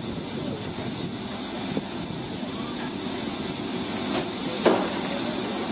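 BR Standard Class 2 2-6-0 steam locomotive running in slowly: a steady low running noise with a hiss of steam, broken by a few short knocks, the loudest about a second before the end.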